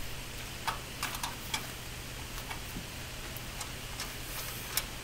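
Light, irregularly spaced metallic clicks and taps of a spanner tightening a bolt on a steel block-moulding machine frame, about eight in all, over a steady low hum.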